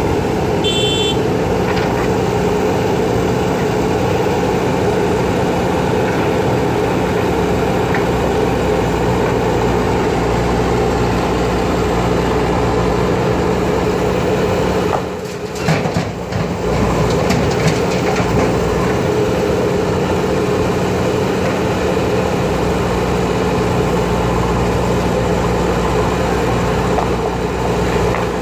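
JCB backhoe loader's diesel engine running steadily under load while the backhoe digs and loads. Halfway through there is a brief dip, then a few knocks and scrapes as the bucket works the stone and earth.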